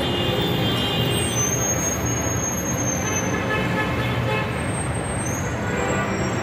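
Busy city street traffic: vehicles running and passing, with several held tones sounding over the traffic noise.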